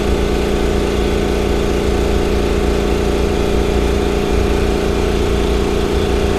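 Makita MAC2400 Big Bore air compressor running steadily as it charges its tank.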